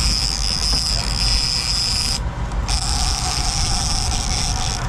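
Big-game trolling reel screaming as a hooked fish strips line against the drag, a high buzzing whine. It cuts out for about half a second two seconds in, then starts again. Under it runs the low rumble of the boat's engine.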